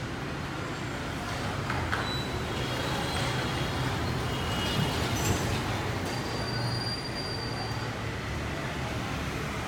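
Steady background rumble of vehicle noise with a low hum, and a few faint high-pitched tones and light clicks over it.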